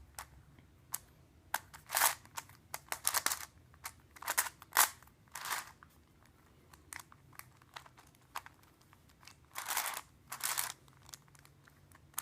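Plastic Mix-Up Cube twisty puzzle being turned by hand: a run of irregular short clicks and rasps as its layers are twisted, with brief pauses between turns.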